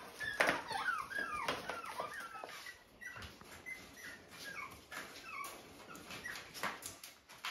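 Young puppies shut in a wire crate whining and whimpering: many short, high cries that fall in pitch, one after another, with light knocks and scuffles between them. The crying is their distress at being weaned and kept from their mother; they want out.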